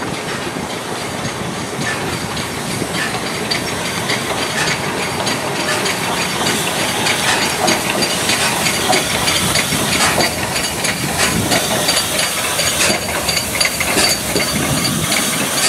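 LMS Princess Coronation class steam locomotive 46233 'Duchess of Sutherland' running slowly along a station platform, with a steady hiss of steam and wheels clicking over the rail joints, growing louder as it draws close.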